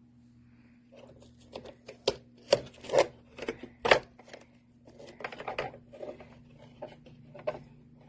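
Plastic filters and parts of an indoor dryer vent box being handled: an irregular run of sharp clicks, knocks and rustles, the loudest a few seconds in, over a faint steady hum.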